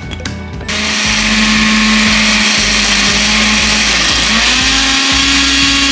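Electric countertop blender running, puréeing roasted tomatoes, onion, garlic and chiles into a red salsa. It starts about a second in with a steady motor hum. Around four seconds in the hum dips briefly, then comes back at a slightly higher pitch.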